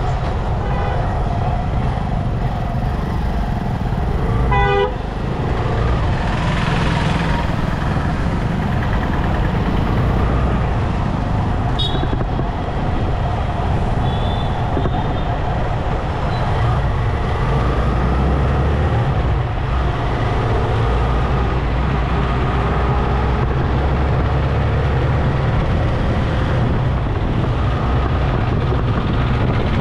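City road traffic heard from a moving motorcycle: a steady low rumble of engines and road noise, with one vehicle horn blast about four seconds in.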